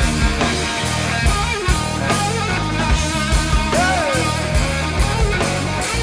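A rock band playing live: electric guitar, bass guitar and drum kit with cymbals, at a steady loud level. About four seconds in, one note bends downward in pitch.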